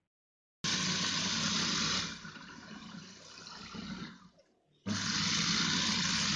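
Electric food processor's motor running, its blade grinding raw chicken mince with green chillies and coriander to a fine paste. It runs in two spells: it cuts in loud, dies away over a couple of seconds, then runs loud again for the last second and a half.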